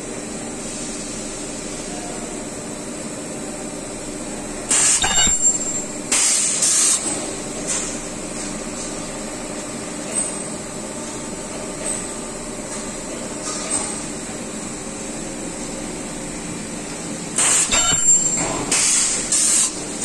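Ultrasonic plastic welding machine cycling while joining sections of an air-conditioner's plastic blower wheel, over a steady machine hum. It gives two pairs of short, loud hissing bursts, one pair about five seconds in and another near the end, with a few faint clicks between.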